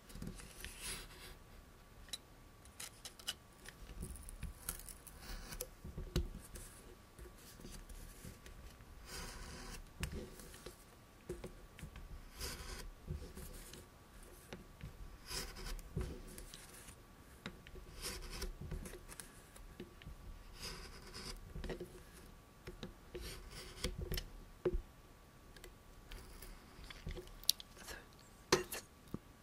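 Close-miked cutting and scratching strokes on an object, coming irregularly every second or few seconds, over a faint steady tone.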